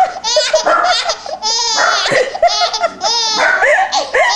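Five-month-old baby girl laughing hysterically: high-pitched laughs in quick repeated bursts, one after another with barely a pause.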